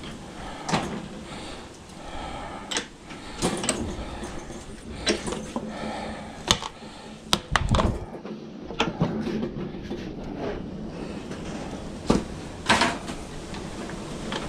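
Irregular knocks and clunks as a car radiator and its parts are handled and set down on a workbench, about a dozen sharp hits spread unevenly.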